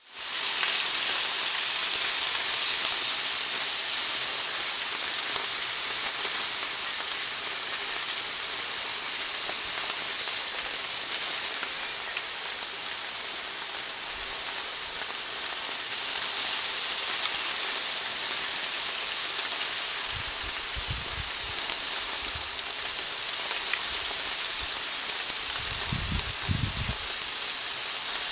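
Dry-aged T-bone steaks sizzling steadily in aluminium grill trays on a grill. Twice in the later part, about two-thirds through and again near the end, a low rumble sounds under the sizzle.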